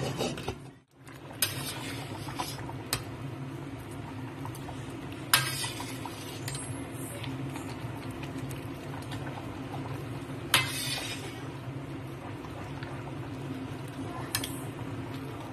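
A spatula stirring chicken curry with potatoes in a stainless steel pan over a steady simmer, with a few sharp clacks of the spatula against the pan.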